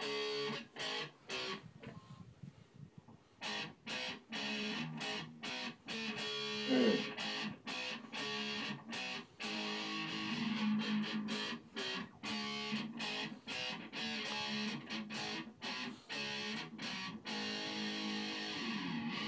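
Unaccompanied electric guitar playing short picked and strummed phrases of notes and chords with brief gaps between them. A quick downward slide about seven seconds in, and another near the end.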